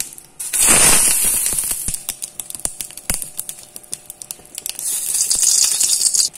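Sesame oil poured into a hot empty kadai, sizzling with a sharp hiss and crackles as it hits the heated metal. The hiss is loudest just after it starts, thins to scattered crackles, swells again near the end and cuts off suddenly.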